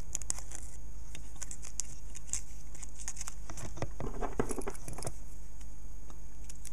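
Light clicking and scratchy rustling as fingers work a strip of paper under a contact of a wafer switch, paper and metal tags rubbing. There is a denser patch of rustling about four to five seconds in, over a steady low hum.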